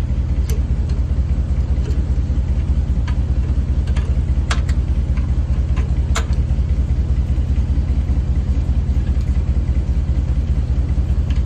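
Heavy truck's diesel engine idling with an even low pulsing. A few short sharp metallic clicks from a wrench loosening the bolts of the exhaust DEF injector.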